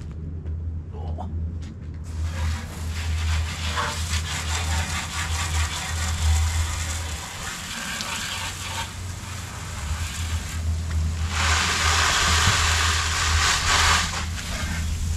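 Pressure washer's engine running steadily with a low hum while the wand's high-pressure water spray hisses against the aluminum trailer. The spray starts about two seconds in and grows louder near the end.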